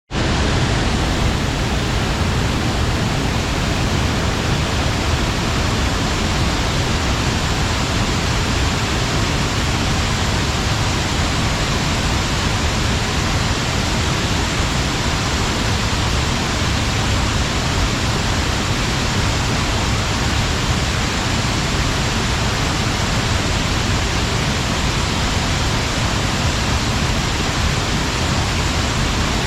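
Water of the Gion Falls pouring over the Katsunuma dam: a steady, dense rush with a strong low rumble beneath.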